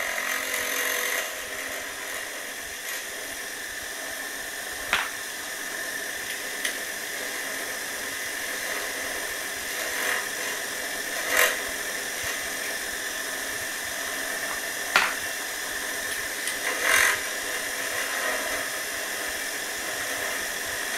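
Giraud powered case trimmer running with a steady whir from its electric motor and belt-driven carbide cutter. A few brief louder clicks and scrapes come as a rifle brass case is pushed down onto the cutter, which trims the case and chamfers the neck inside and out.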